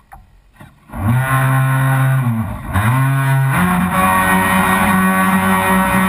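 A model boat's motor throttles up about a second in to a loud, steady drone. It eases off and spins back up briefly, then settles at a higher pitch as the boat gets under way.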